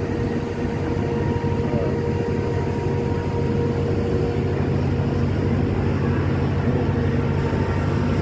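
A ship's engine running steadily with a low drone, a faint steady whine above it.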